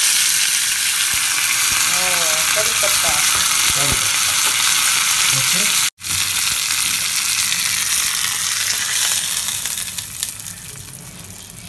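Green chillies and curry leaves spitting and sizzling loudly in hot mustard oil in a small tempering pan. The sizzle cuts out for an instant about halfway, then goes on and dies down near the end as the tempering is poured into the fish curry.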